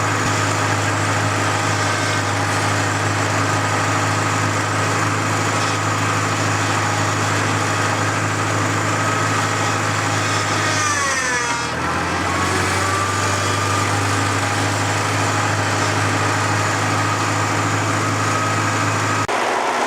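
Gasoline tractor engine running steadily while it drives a homemade backhoe's hydraulics. About halfway through, its pitch sags briefly and then comes back up.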